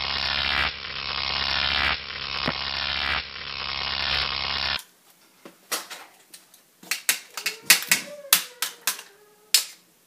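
Electric arc sound effect: a dense crackling buzz over a steady electrical hum, stopping abruptly about five seconds in. After it come scattered sharp clicks and taps of plastic toy keypad buttons being pressed and a hand tool being handled.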